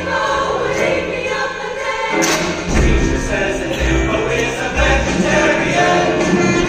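Choir singing with band accompaniment. A sharp hit comes about two seconds in, and a strong bass line runs after it.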